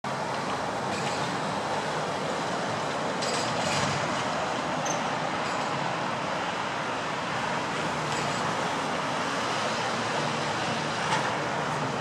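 Steady hum of distant road traffic, with a few faint short high sounds over it.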